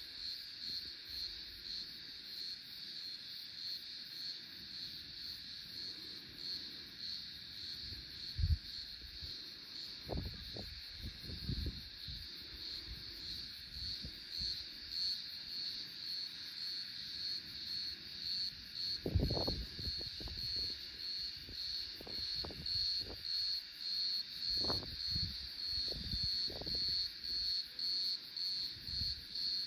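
Insects calling in a steady, high-pitched, evenly pulsing chorus that grows a little louder toward the end. Low gusts of wind buffet the microphone now and then, the strongest about two-thirds of the way through.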